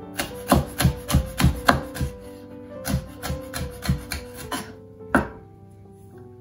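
Chef's knife chopping a red chilli on a wooden chopping board: a quick run of sharp knocks for the first two seconds, then slower, sparser cuts, the last about five seconds in.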